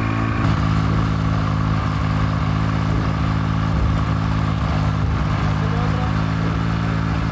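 A steady, unchanging low engine drone with several even hum tones, its tone shifting slightly about half a second in.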